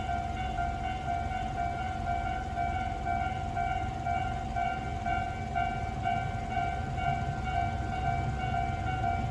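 Electronic warning bell of a Tobu Railway level crossing, ringing a steady run of repeated dings in a slightly unusual variant of the Tobu standard tone, with a low steady rumble underneath.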